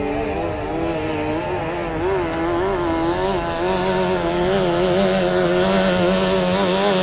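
Racing tunnel-hull powerboat's engine running at high revs, its pitch wavering up and down as the boat skims the water, growing louder in the second half.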